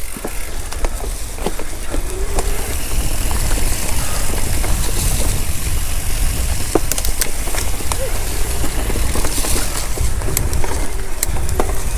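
Mountain bike riding a dirt singletrack: wind rushing over the microphone and tyre noise on the trail, with scattered sharp clicks and knocks from the bike and ground.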